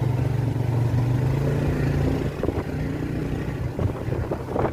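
Motorcycle engine running steadily under way on a steep climb, its hum easing off about two seconds in.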